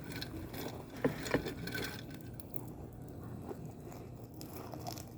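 Quiet eating sounds at a cup ramen: faint scraping and light clicks of utensils and food being handled, with two short, louder sounds about a second in.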